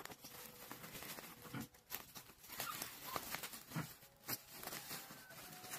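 Plastic packaging crinkling and rustling in irregular crackles as bubble wrap and a black plastic bag are handled and pulled open.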